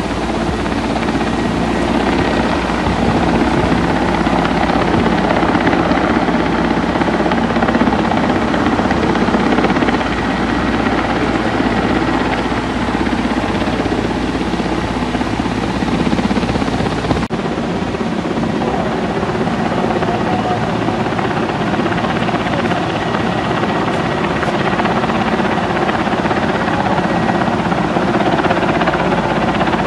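Steady rush of fast-flowing muddy floodwater. About seventeen seconds in it cuts to a helicopter flying low over the flooded river, its engine and rotor heard over the rushing water.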